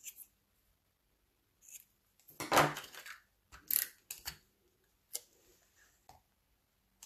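Scattered handling sounds of paper crafting: a small paper pennant and card stock rustling as they are handled and pressed down on the work mat, with a few light clicks and taps of small tools. The loudest is a short rustle about two and a half seconds in.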